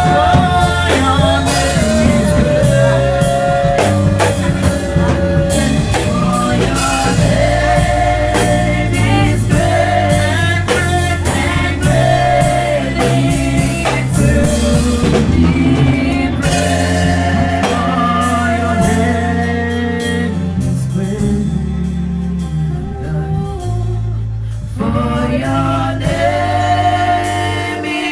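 Gospel worship music: voices singing a melody over a band with drums and bass. About twenty seconds in the band thins out for a few seconds, then the full sound comes back in near the end.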